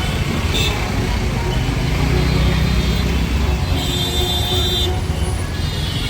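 Loud street din: crowd voices over the rumble of vehicle traffic, with some music mixed in.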